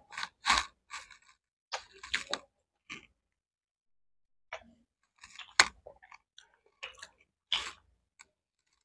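People chewing and biting into pizza: scattered irregular crunches and mouth clicks, with the sharpest ones about halfway through and near the end.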